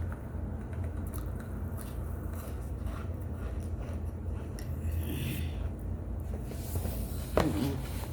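Chewing and crunching of baked cornstarch chunks, soft scraping and squishing sounds close to the microphone over a steady low hum, with a short falling sound about seven seconds in.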